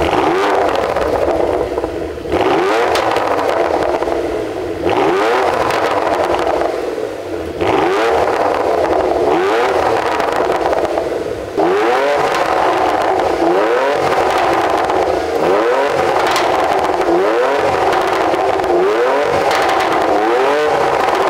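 Porsche Macan GTS twin-turbo V6 running through a TechArt variable exhaust, revved over and over with the pitch climbing on each blip. The sound comes in several passages, each starting abruptly.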